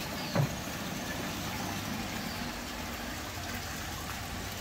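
Steady rush of water pouring and splashing into a stingray breeding pond from inflow streams. A short downward-sliding sound comes about half a second in.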